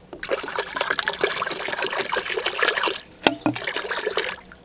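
Water poured from a plastic bottle into a metal cooking pot of sliced onion, a steady splashing trickle that drops off about three seconds in. A single sharp knock follows.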